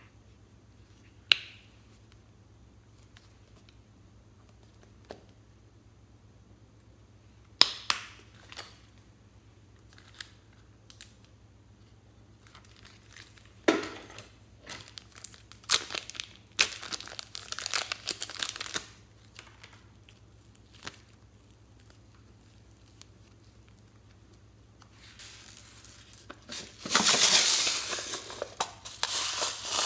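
A few sharp plastic clicks, then crinkling of a small plastic bag of pink clay being handled and squeezed for several seconds. Near the end comes the loudest part: dense crinkling and crushing of plastic.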